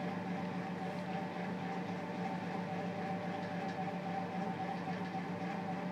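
Steady background hum: a low drone with a fainter, higher steady tone above it.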